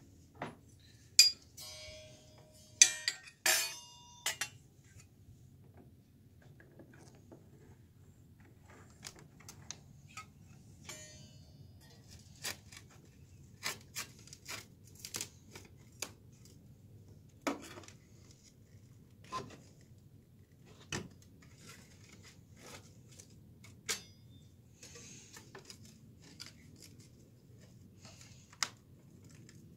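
Metal tools clicking and scraping as a flat pry bar is worked against a thin metal guard plate to pry a nailed-on wooden window sill cover loose, in scattered sharp taps. Near the start there is a louder clatter of metal parts with a brief ringing.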